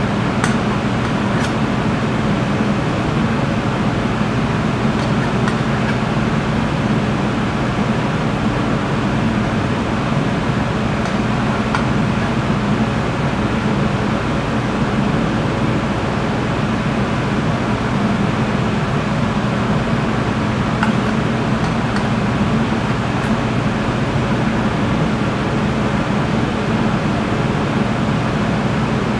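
Steady fan hum and hiss of kitchen ventilation, with a few faint light taps now and then.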